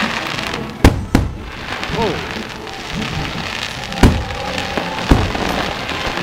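Aerial firework shells bursting overhead: four sharp bangs, two in quick succession about a second in, then one around four seconds in and another about a second later.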